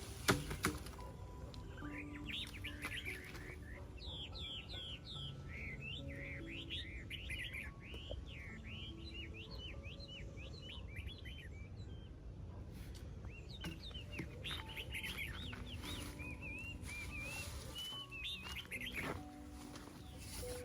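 Small birds chirping and twittering, with many quick calls in a dense run that thins out near the end. A sharp click comes just after the start.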